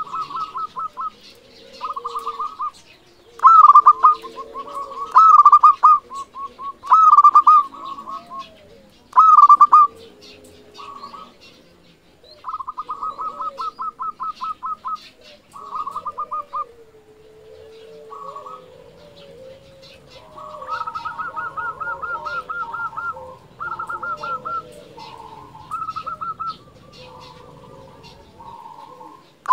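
Zebra doves (perkutut) cooing: repeated phrases of rapid, rolling pulsed notes, loudest in several bursts during the first ten seconds. Faint chirps of other birds sound underneath.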